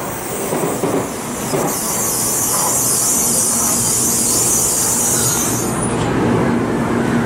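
N700-series Shinkansen train moving slowly along the platform: a steady rumble of wheels on rail, with a high hiss that starts a couple of seconds in and cuts off sharply about six seconds in.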